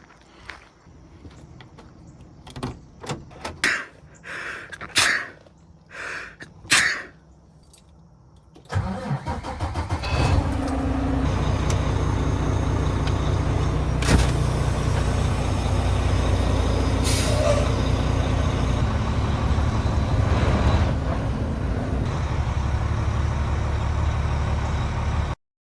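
A few knocks and steps, then a truck engine cranks and starts about nine seconds in and settles into a steady idle. The sound cuts off suddenly near the end.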